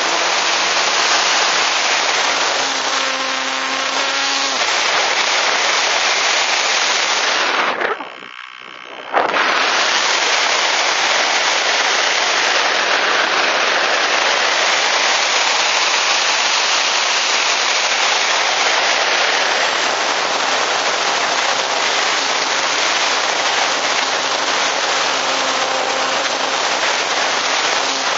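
Steady wind rush over an RC glider's onboard camera in flight, with the whine of its electric motor and propeller audible at first and cutting out about four seconds in, then faintly coming back near the end. The noise briefly drops away for about a second in the middle.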